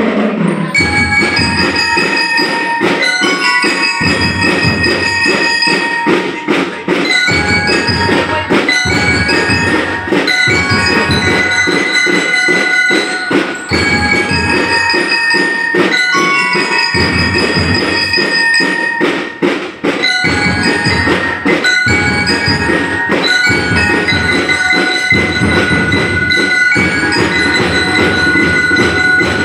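Drum and lyre corps playing a march-style tune: metal bell lyres ring out a melody over repeated drum strokes.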